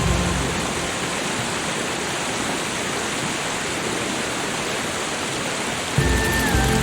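Steady, even rushing water noise with no tones in it. About six seconds in, soft background music with held notes comes back in over it.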